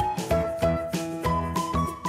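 Background music: a melody of clear pitched notes over a bass line and a steady beat, with the melody stepping upward in pitch near the end.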